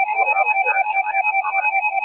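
Electronic alert tones beeping rapidly, about seven pulses a second, on two pitches at once, with a fainter shifting sound underneath, all in narrow, radio-like audio.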